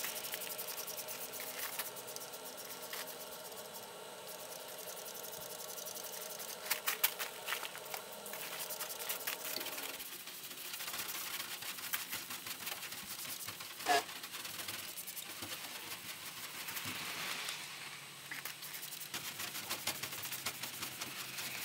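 Faint scrubbing and scraping on a van's paintwork to clean off moss and algae, with scattered clicks and one sharper click about 14 seconds in.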